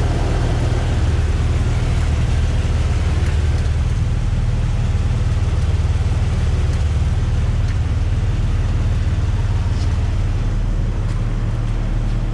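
2005 Jeep Wrangler TJ's 4.0-liter straight-six idling steadily, with a faint, irregular clicking over the engine hum. The owner calls the click a weird noise that he cannot pinpoint.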